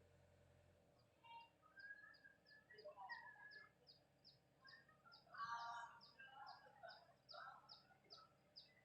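Faint birds calling: a high, short chirp repeated about three times a second, mixed with varied louder calls. The loudest call comes about halfway through.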